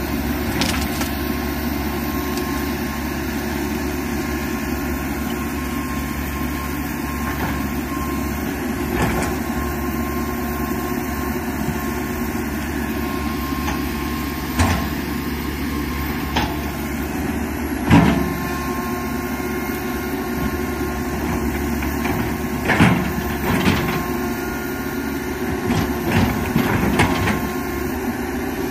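Komatsu PC195 hydraulic excavator's diesel engine running steadily under load while it digs, with sharp knocks and cracks scattered through as the bucket works through soil, roots and branches; the loudest crack comes about two-thirds of the way in.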